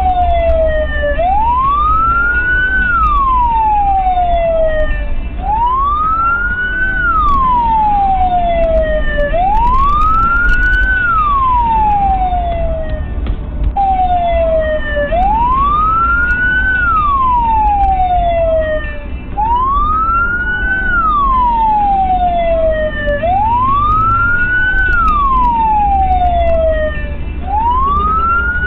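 Emergency-vehicle wail siren, each cycle rising quickly and falling slowly, about one every four seconds, with fainter siren sweeps out of step with it and a steady low road rumble underneath.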